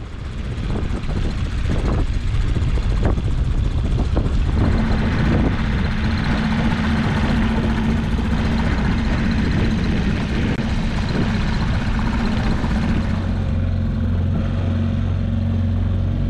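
A boat's engine running under way, with a steady drone over wind and water rush. The sound shifts about thirteen seconds in, the hiss dropping away and a lower hum coming up.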